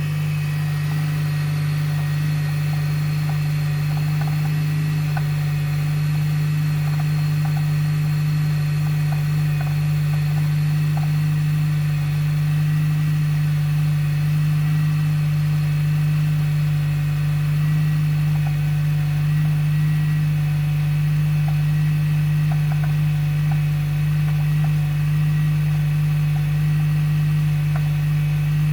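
Honda RP5 Step WGN Spada hybrid (i-MMD) drivetrain running with a steady low hum and faint, scattered ticks over it. This is the abnormal noise that comes on in cold winter weather, which the owner believes is the flywheel.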